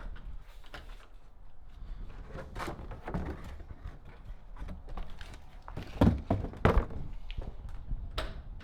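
Scattered knocks and two heavier thuds about six seconds in, over a low rumble of the camera being handled.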